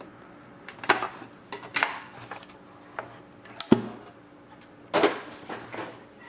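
A sealed sports card box being handled and opened: scattered rustles of cardboard and wrapping with several sharp clicks and taps, the sharpest knock about three and a half seconds in.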